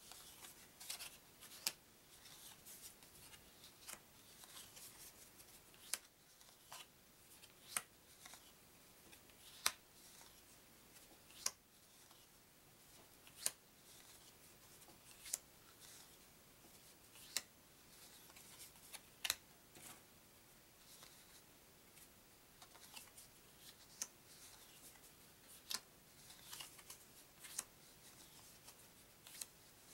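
Paper trivia cards being flicked off a stack one at a time: a sharp card flick about every two seconds, with light paper rustling between.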